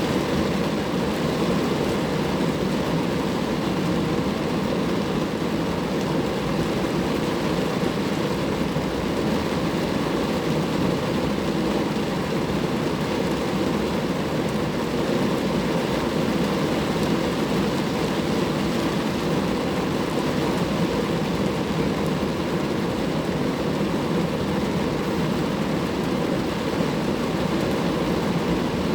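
Rain falling steadily on a car, an even noise that does not change.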